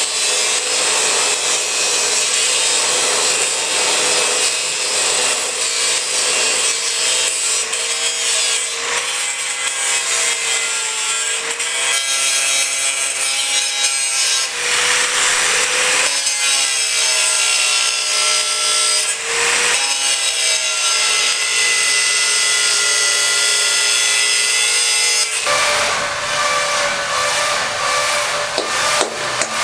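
Electric power tool cutting or grinding under load: a steady running whine with a harsh scraping noise, its pitch sagging and recovering again and again as the tool bites. The tone changes near the end.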